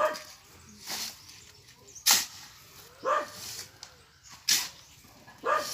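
Steel shovel scraping and scooping through wet cement mix on a concrete surface, a sharp rasp about once a second as the mix is turned by hand.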